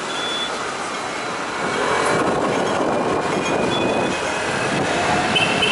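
Double-decker electric tram running along street tracks, heard on board: a steady rumble of wheels on rail that grows louder about two seconds in, with a faint high whine at times.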